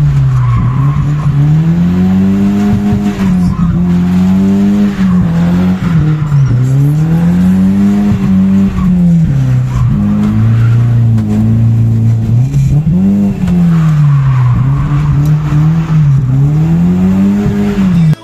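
BMW 318i E36's four-cylinder engine heard from inside the cabin while drifting. The revs swing up and down over and over, climbing, holding high, then dropping. The tyres squeal.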